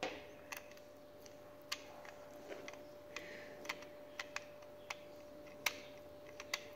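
Faint, scattered small clicks and taps, about a dozen at uneven spacing, as a screwdriver and fingers work at a screw on the underside of a toy Mini Cooper; the screw is not coming out.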